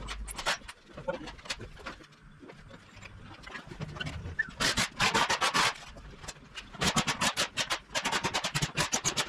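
Hand ratchet clicking in quick runs of strokes, one short run about halfway through and a longer one near the end, with scraping and handling noise between, as the fixings of a refitted EV high voltage battery are done up.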